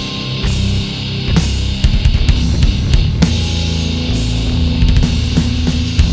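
Heavy rock band playing an instrumental passage: distorted guitars and bass over a driving drum kit with regular cymbal and drum hits.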